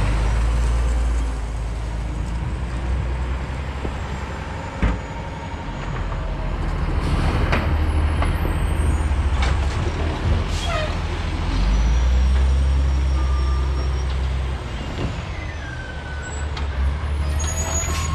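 Automated side-loader garbage truck's diesel engine running as it moves along the street, swelling and easing several times, with a few high brake squeals and a sharp knock about five seconds in.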